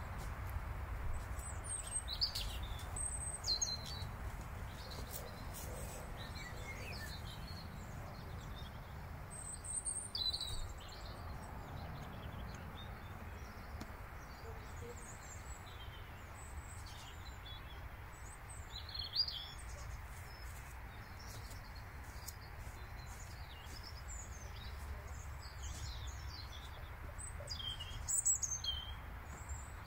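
Small birds chirping and singing on and off, short scattered calls, over a steady low background rumble.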